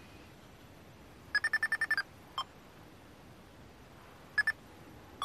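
Electronic beeping from a pyramid-shaped ghost-hunting proximity sensor as it triggers. A fast run of about eight beeps comes first, then a single beep, then a pair a couple of seconds later and another at the very end. The sensor sets off when something comes within about a foot of it.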